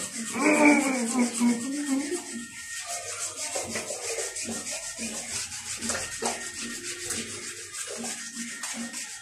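A bathing scrub stone rubbed fast and hard over wet, soapy skin: a steady run of quick rasping strokes. A brief vocal sound is heard in the first couple of seconds.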